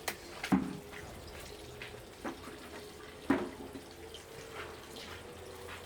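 Water dripping and splashing in a few separate splashes, over a faint steady hum.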